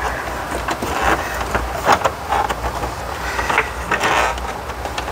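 Plastic dash panel and AC ducts being pressed and worked into place by hand: irregular clicks and knocks of plastic trim, over a steady low hum.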